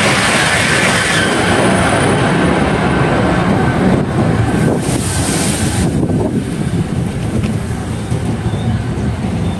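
Whoosh high-speed electric train rushing past at speed and disappearing into a tunnel. A loud rush of air and running gear fades over several seconds into a steady low rumble as the train is swallowed by the tunnel.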